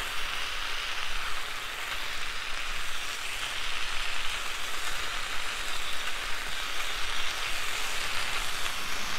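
Raw ground-beef smash-burger patties sizzling in a steady hiss on a hot Blackstone flat-top griddle as one is pressed flat under parchment paper with two metal spatulas.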